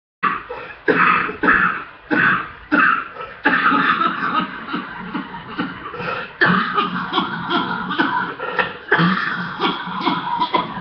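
A woman coughing hard in a long fit: a quick string of forceful coughs in the first few seconds, then a run of rapid coughing with hardly a pause for breath. A chesty cough from chest congestion.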